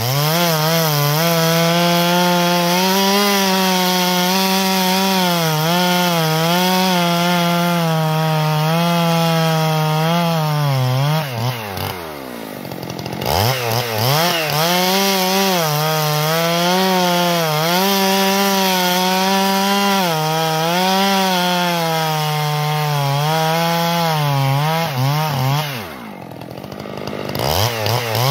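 Stihl MS 441 C-M Magnum chainsaw, a 70 cc two-stroke, bucking a downed dead tree into firewood rounds, its engine held at high revs with the pitch wavering as the chain works through the wood. Twice, about twelve seconds in and again near the end, the revs drop away briefly as the throttle comes off, then climb back as the saw goes into the next cut.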